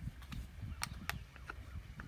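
A few sharp clicks and taps of hand tools and small hardware being handled while a doorbell is mounted, over a low, uneven rumble.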